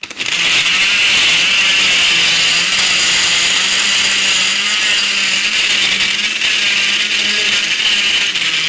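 Onga countertop electric blender switched on and running steadily, blending chopped fruit and coconut milk into a smooth drink. Its motor hum is steady throughout.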